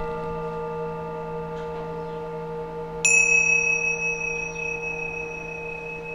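Singing bowls ringing: a lower bowl's several steady tones hum on and slowly fade, and about three seconds in a smaller, higher-pitched bowl is struck and rings on brightly.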